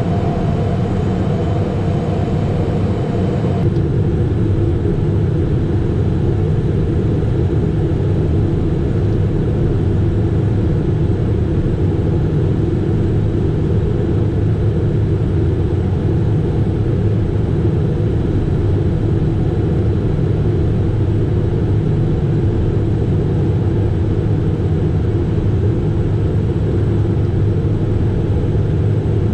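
Steady cockpit noise of a Cessna Citation Mustang light jet in flight: a dense low rumble of airflow and its twin Pratt & Whitney PW615F turbofans. Faint steady tones in the first few seconds stop at an abrupt change in the sound about four seconds in.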